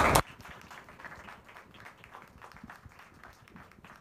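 Applause that breaks off suddenly a moment in, followed by faint, scattered hand claps.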